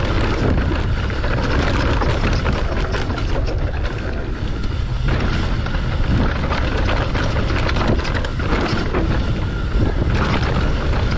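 Mountain bike descending a rough dirt trail at speed: wind rushing over the camera microphone, with the tyres rolling and the bike rattling over bumps.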